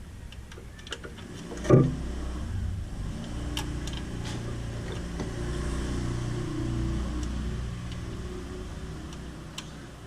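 A sharp thump, then a steady low rumble with scattered light clicks and taps, typical of handling a cable and its fittings.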